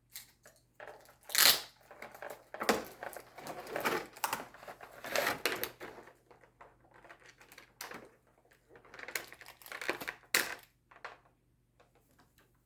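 Cardboard and plastic toy packaging being torn open and handled, with irregular crinkling, rustling and sharp crackles.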